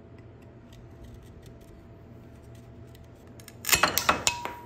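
Handheld multi-angle miter shears biting through a protruding wooden Domino tenon to trim it flush: faint ticks of handling, then a quick run of loud, sharp crunching snaps near the end as the blade cuts through.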